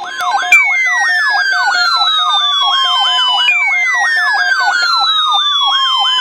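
Loud electronic siren: a fast up-and-down yelp, about four cycles a second, overlaid from about half a second in by a falling wail that repeats about every three seconds.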